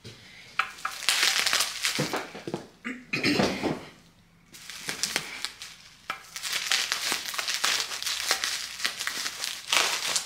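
Packaging crinkling and rustling as it is cut with scissors and pulled off a platter plate, in dense stretches with a short lull about four seconds in.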